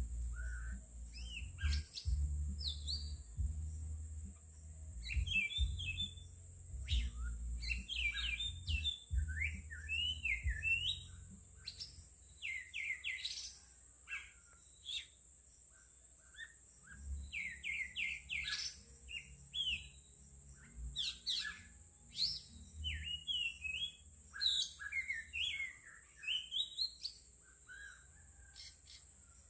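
Songbirds chirping and singing, many short quick rising and falling notes in overlapping phrases, over a steady high-pitched whine. A low rumble runs underneath for the first dozen seconds or so.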